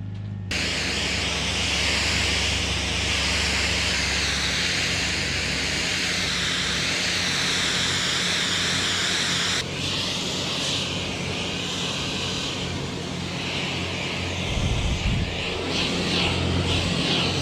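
A steady spray of water hissing against equipment over an engine running steadily underneath, with a cut about half a second in and a change in the hiss about ten seconds in.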